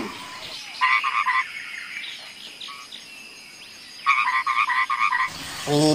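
Frog croaking: two quick runs of rapid croaks, a short one about a second in and a longer one about four seconds in.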